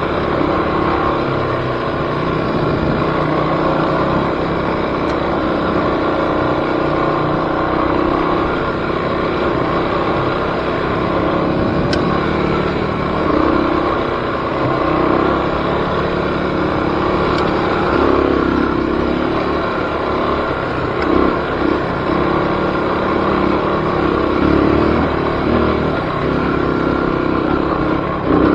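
Off-road vehicle engine running steadily while riding, with small rises and falls as the throttle changes.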